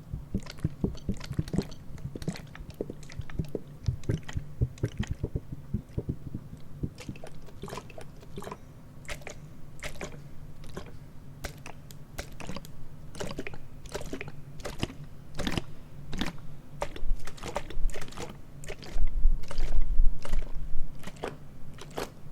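ASMR tapping and rubbing on objects close to the microphone at an unhurried pace: irregular crisp taps and scratches over a faint low hum, with a louder low rumble for a couple of seconds near the end.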